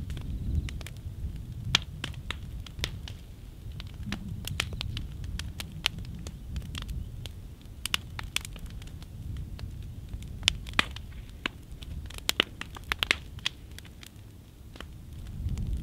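A burning upright piano's wooden case crackling and popping in the flames, with irregular sharp snaps, several close together about two thirds of the way through. A steady low rumble lies underneath, louder at the start and again near the end.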